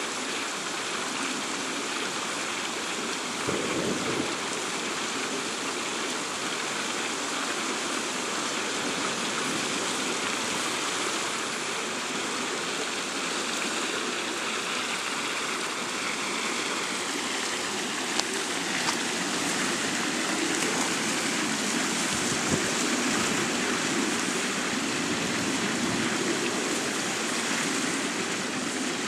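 Steady rushing noise of storm wind and choppy water, with a brief low rumble about four seconds in.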